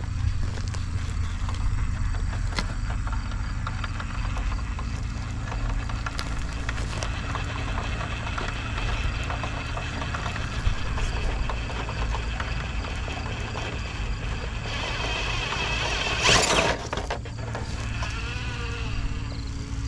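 Radio-controlled rock crawler driving over concrete rubble: a steady low rumble with a faint electric motor whine, and one brief loud scrape about sixteen seconds in.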